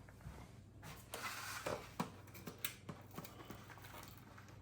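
Serving utensils scraping and clicking against plates as fries are dished out: a short scrape about a second in, then several light clicks and knocks.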